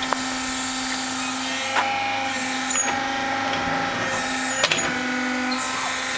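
Play digger's motor running with a steady hum whose tone cuts out and comes back a few times, with a few sharp clicks and knocks.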